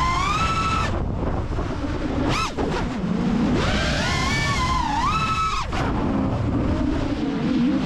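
FPV quadcopter's Ethix Stout 2306 1750 kV brushless motors whining, the pitch gliding up and down with throttle. The whine cuts out and comes back several times, with one quick sharp rise and fall near the middle, over a steady rushing wind noise on the onboard microphone.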